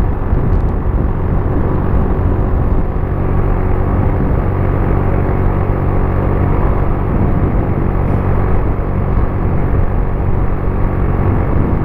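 120 cc motorcycle engine running at a steady speed, with a constant low drone and road and wind noise, no revving up or down.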